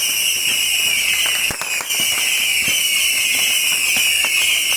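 A beehive rocket fortress firing: swarms of bottle rockets give a continuous high shrieking whistle, with many sharp cracks and pops of bursting rockets and firecrackers throughout.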